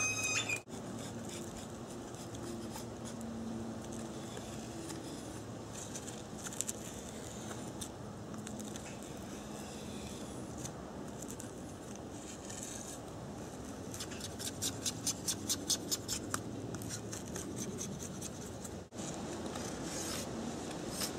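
Knife blade scraping along the edge of a split bamboo half, shaving it sharp to make a fire-saw blade. Toward the latter part comes a run of quicker strokes, about three a second.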